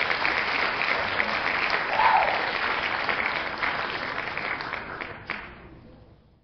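Crowd applauding, swelling briefly about two seconds in, then fading out over the last second or so.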